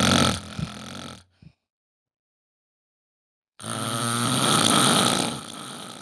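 Tyrannosaurus rex roar sound effect: a deep, rough growl that dies away within the first second, then after about two seconds of silence a second growl lasting about two and a half seconds.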